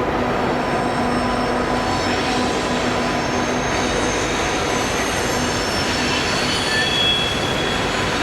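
Train rolling by with a steady dense rumble of wheels on rail. Thin high-pitched wheel squeals come in from about two seconds in and grow stronger later.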